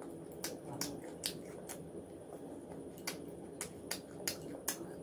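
A person chewing a mouthful of fish fry close to the microphone, with sharp wet mouth clicks and smacks coming irregularly, about two a second.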